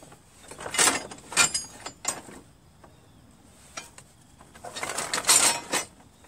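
Loose metal lawn-tractor parts clanking and scraping as they are dug through and moved about by hand, in two bouts of clatter with a quiet pause between.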